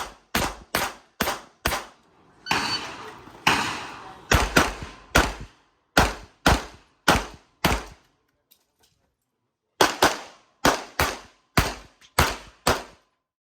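Handgun, most likely a Tanfoglio pistol, firing a rapid string of shots about half a second apart during a practical shooting stage. There is a pause of almost two seconds past the middle, with only faint clicks in it, before the string resumes.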